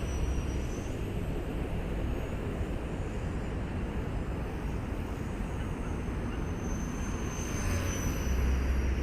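Electric RC helicopter flying a moving roll: a steady rotor hiss with a thin high motor whine that fades about a second in and comes back near the end, slowly falling in pitch as the sound grows a little louder.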